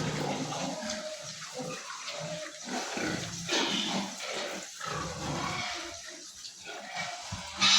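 Pigs grunting in short, irregular calls, with a louder squeal right at the end.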